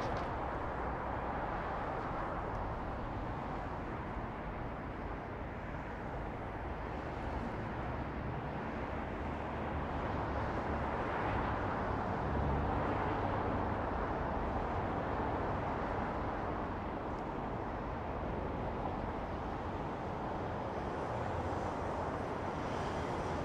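Night-time city ambience: a steady, distant hum of traffic across the city. It swells about halfway through with a deeper rumble, like a vehicle passing closer, then settles back.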